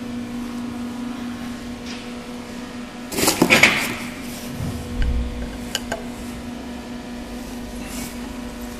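Electric air compressor running with a steady hum while it builds pressure. About three seconds in there is a brief louder clatter of handling, and a low thump follows about a second later.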